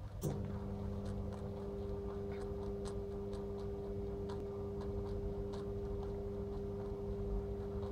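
A steady low two-tone hum, with faint, irregular ticks and clicks scattered through it.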